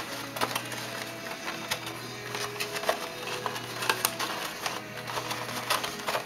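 Irregular small clicks and taps from a scale model car and its box being handled, over steady background music.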